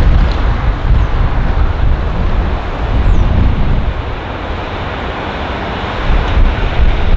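Diesel locomotive approaching slowly with a train of passenger carriages, its engine rumbling, with wind buffeting the microphone.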